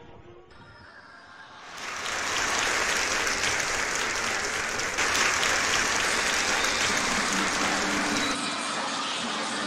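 Audience applause: many hands clapping together, starting about two seconds in after a short lull and going on steadily.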